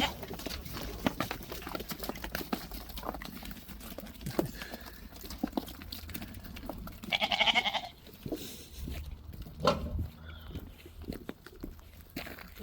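Dorper sheep bleating once, a single drawn-out bleat about seven seconds in, over scattered clicks and knocks of the flock moving about.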